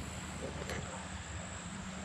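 Outdoor background with a steady, high insect trill and a low rumble, and a faint click about three-quarters of a second in.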